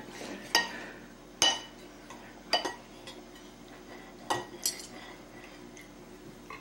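Metal knife and fork clinking and scraping against a ceramic plate while cutting a pancake, with about six sharp, ringing clinks at irregular intervals.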